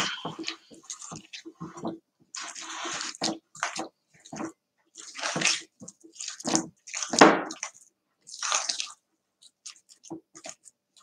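Metal spoon stirring a thick, wet boiled-wheat coliva mixture in a glass bowl: irregular squelching strokes, one after another.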